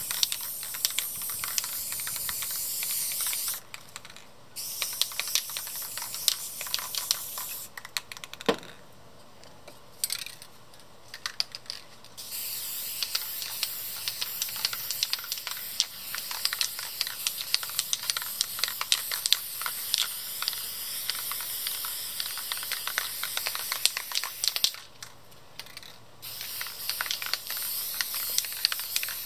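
Aerosol spray paint, Rust-Oleum American Accents, hissing from the can in long runs. The runs are broken by three pauses, the longest about four seconds a third of the way in. Many small clicks run through the hiss.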